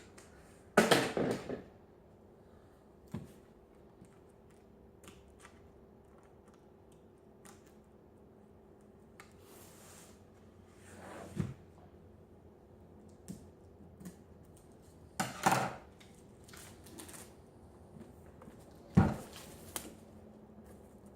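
Handling of packaging while a boxed item is unpacked: scattered knocks, clicks and rustles, the loudest about a second in, around the middle and near the end. A faint steady hum runs underneath.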